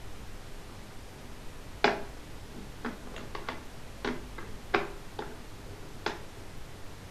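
An irregular series of sharp ticks or taps, about ten over five seconds. The first, about two seconds in, is the loudest.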